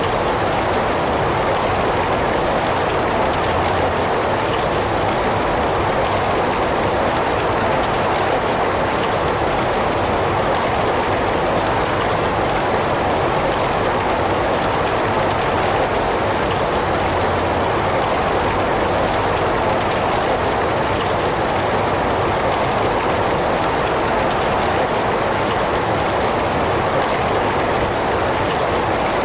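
Heavy rain falling steadily, an even, unbroken hiss of rain with no individual drops or thunder standing out.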